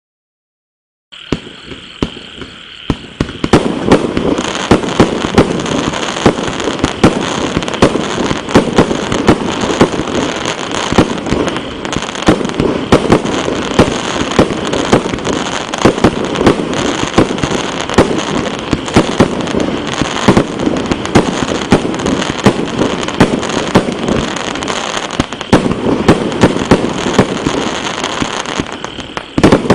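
A 120-shot consumer fireworks battery (cake) firing. It starts about a second in with a few separate pops, then becomes a rapid, continuous run of launches and bursting bangs with crackle, dips briefly near the end, and picks up again.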